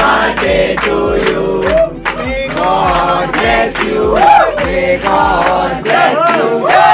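Background music: a song with singing over a steady drum beat. The deep bass drops out near the end.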